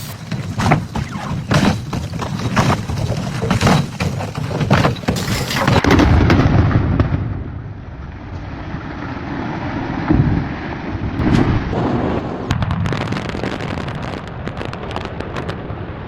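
Demolition: a rapid series of crashes and heavy thuds over a low rumble of breaking and falling debris, easing into a quieter rumble with a few more crashes later.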